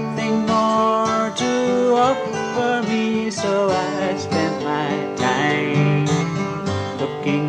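Acoustic guitar music, a steady run of plucked notes and chords.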